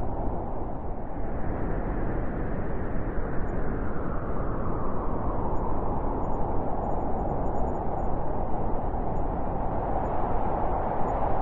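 Blizzard wind blowing: a steady rushing noise whose pitch slowly rises and falls as gusts build and ease.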